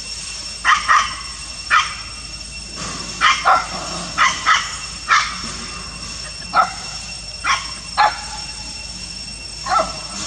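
Dogs barking up at monkeys in a tree: about a dozen short, sharp barks, irregularly spaced, some in quick pairs.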